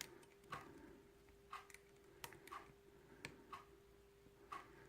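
Near silence with faint ticks about once a second, fairly evenly spaced, over a faint steady hum.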